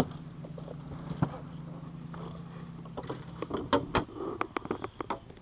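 Light clicks, knocks and rattles of fishing gear being handled in an aluminium jon boat, coming thick between about three and five seconds in. Under them is a low steady hum that fades out about three seconds in.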